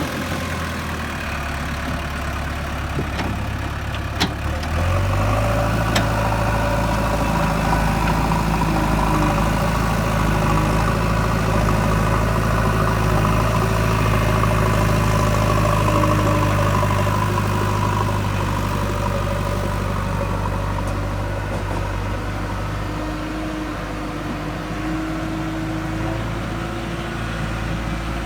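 JCB 3DX backhoe loader's diesel engine working while dozing soil with the front bucket. The engine note steps up about four seconds in and holds steady under load, then eases off a little toward the end, with a sharp clank about four seconds in.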